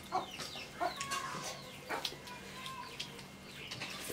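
Chickens clucking now and then, with short clicks and taps from hands and steel plates.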